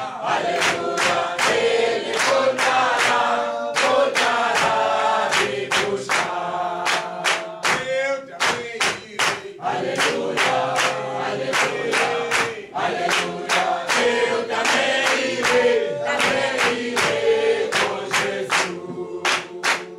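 A congregation singing a hymn together, with steady hand-clapping on the beat about twice a second.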